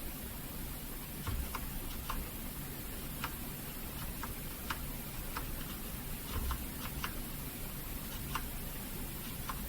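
Key presses on a Patriot Viper V760 mechanical keyboard with brown switches: about a dozen short, quiet clicks at irregular intervals, a few of them in quick pairs.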